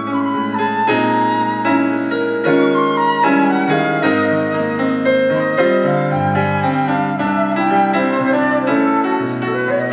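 Live duo of concert flute and stage piano: the flute plays a flowing melody over the keyboard's chords, climbing in pitch near the end.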